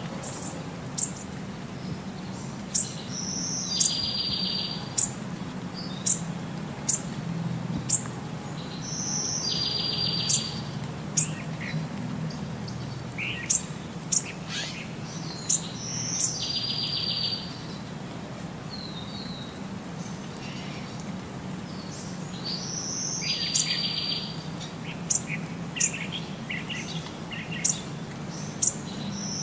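Birdsong: sharp high chirps and a short buzzy trill, the same phrase coming back about every six or seven seconds, over a low steady hum.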